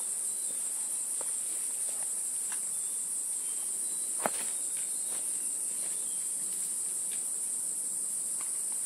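Steady high-pitched drone of insects, with scattered footsteps and light clicks of trekking poles on a dirt trail, and one sharper click about four seconds in.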